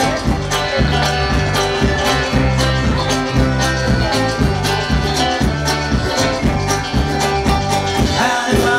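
Folk-rock band playing live, an instrumental passage with accordion, guitars and drums over a steady beat.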